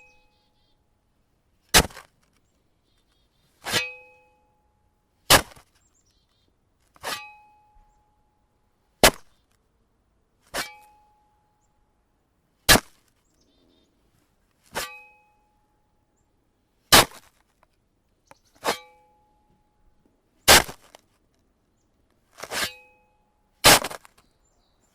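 A shovel breaking frozen snow: about thirteen sharp strikes, roughly one every two seconds. Several strikes leave a short ringing tone from the shovel blade.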